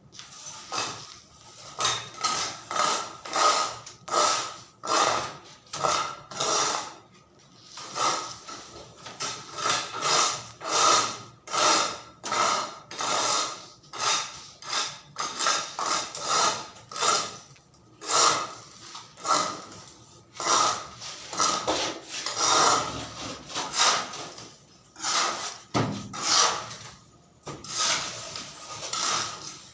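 A hand tool scraping on wood in steady back-and-forth strokes, about one and a half a second, with a brief break a little before the end.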